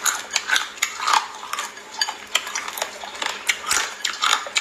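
Close-up eating sounds of small raw crabs being bitten and pulled apart: irregular sharp clicks and crunching of the shells.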